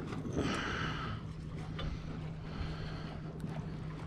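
Hooked dogfish shark splashing at the water surface as it is hauled up on the line, with the loudest splash about half a second in and a smaller one near three seconds. A steady low hum and wind rumble run underneath.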